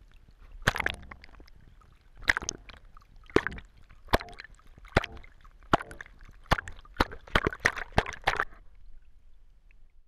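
Tea in a mug sloshing and squishing: about a dozen wet splashes at irregular intervals, stopping shortly before the end.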